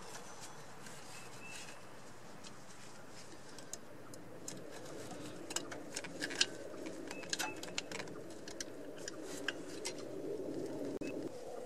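Small metal clicks and clinks of brake spring pliers and a steel return spring against a drum brake shoe and backing plate as the spring is worked back on, coming thicker through the second half. Under them a low steady hum builds from about halfway and stops abruptly near the end.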